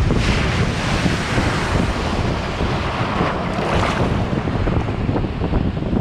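Storm waves crashing against the lakeshore and sending spray over the railing, with a big splash right at the start and another surge about three and a half seconds in. Strong wind buffets the microphone throughout as a low rumble.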